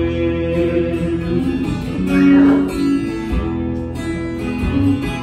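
Acoustic guitar strummed solo in an instrumental break between sung verses of a country song, with a brief voice-like note about two seconds in.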